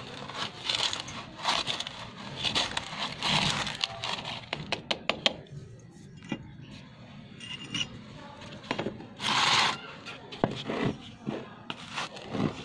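Small hand tool scraping and digging in dry, crumbly soil in a plastic flowerpot, loosening it around the roots of potted plants: irregular scratching and crunching, with a louder half-second rustle about nine seconds in.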